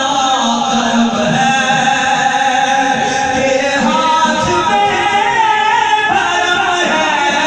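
A man singing a naat, an Urdu devotional poem, into a microphone, drawing out long notes that bend up and down in pitch.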